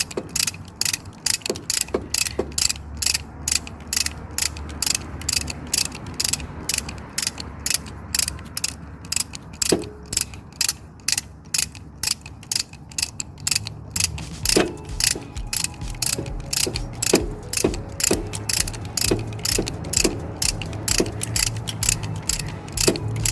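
Hand ratchet wrench clicking in an even rhythm, about three clicks a second, as nuts are run down onto the studs of a Yamaha Banshee 350 engine. About two-thirds of the way through, the clicks become sparser and a low hum comes in beneath them.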